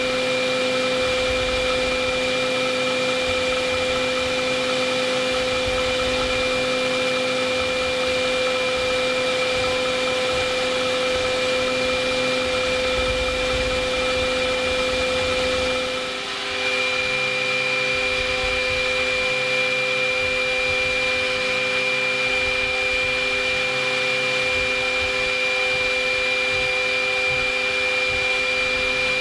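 A DIY CNC milling machine's spindle drives a small end mill through 21MnCr5 steel: a steady high whine with cutting noise over an even hiss. About halfway through, the sound dips briefly and the whine resumes at a slightly different pitch.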